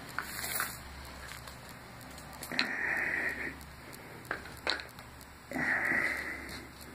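A person breathing slowly and audibly, two breaths about three seconds apart, each under a second long, with a few faint clicks in between.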